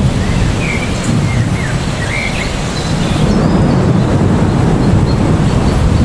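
Heavy rain falling on trees, a steady dense hiss over a low rumble. A few short bird chirps sound in the first half.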